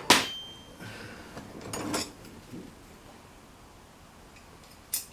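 A steel spanner is dropped onto other metal hand tools with a sharp clank that rings briefly, followed by softer clinking and rattling as the tools are rummaged. There is another sharp metal clank near the end.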